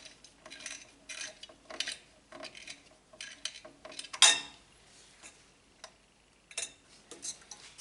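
Small metal parts clinking, ticking and scraping against each other as a CPU cooler is fitted by hand, with one louder clack about four seconds in.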